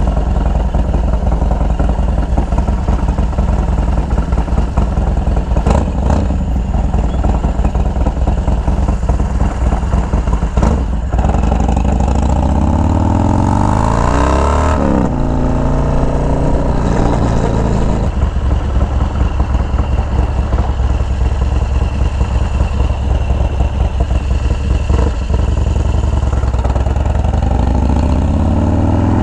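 Harley-Davidson Dyna's S&S 124-cubic-inch V-twin engine under way at road speed. Its note rises as the bike accelerates about halfway through, then drops back to a steady lower cruising note, and starts rising again near the end.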